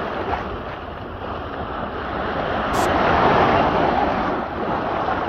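Small waves breaking and washing up over a shallow sand bank in strong surf, the rush of water swelling to its loudest about three seconds in.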